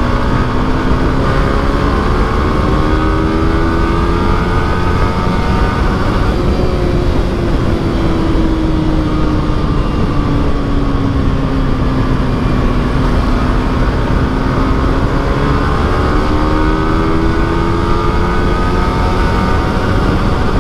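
Yamaha R15 V3's single-cylinder engine pulling hard in third gear, its pitch rising, sagging a little midway, then rising again. Steady wind rush on the microphone sits under it.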